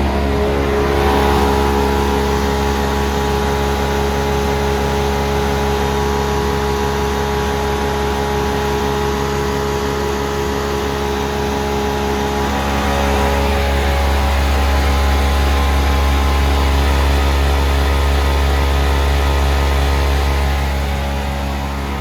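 Timesaver 52-20 industrial orbital sanding machine running steadily, its motors giving a loud, even hum with a set of steady tones above it; the tones shift slightly and it gets a little louder about halfway through.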